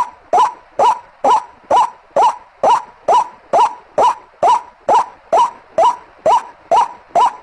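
White-breasted waterhen (ruak-ruak) call played as a bird-lure recording: one short upward-bending note repeated evenly, about twice a second.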